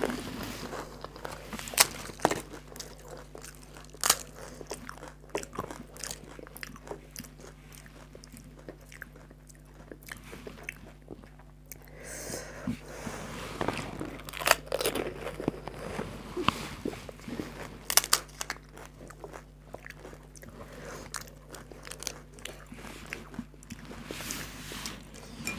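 Crisp, hollow fried fuchka (panipuri) shells, filled and dipped in spiced water, being bitten and chewed: sharp crunches every few seconds between softer wet chewing.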